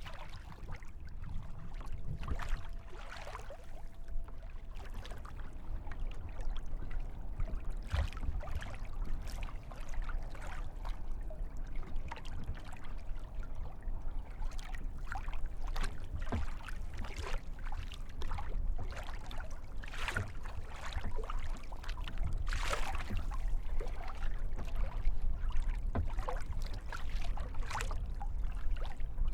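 Kayak paddle dipping and splashing in lake water, stroke after stroke in an irregular series, over a steady low rumble.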